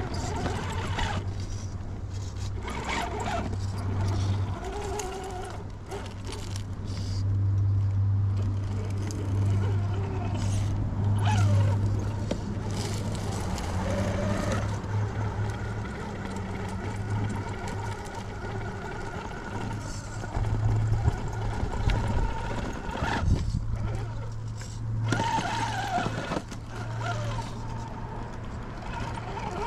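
RC rock crawler with a Fusion SE 1800KV brushless motor grinding slowly up a rock crevice: a steady low motor and gear hum, with scattered knocks and scrapes of tyres and chassis on rock. The hum stops briefly late on, then picks up again.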